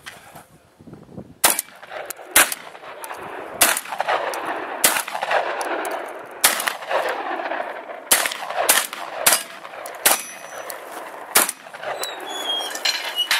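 Shotgun firing about ten shots in a string, roughly one every second, each shot trailing off in an echo.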